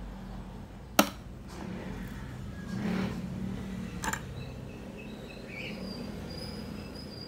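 Plastic latch and lid of a Simplus sandwich maker being unclipped and swung open: a sharp click about a second in, handling noise around three seconds, and a smaller click near four seconds.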